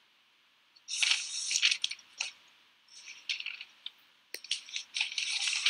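Computer mouse scroll wheel spun in three runs of rapid ratcheting clicks: about a second in, around three seconds, and from just after four seconds on.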